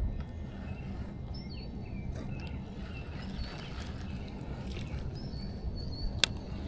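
Birds chirping in short calls over a low, steady outdoor rumble, with a single sharp click near the end.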